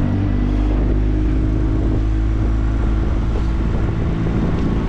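25 hp Yamaha outboard motor running hard under opened throttle, pushing the boat up from idle; a steady, loud engine drone.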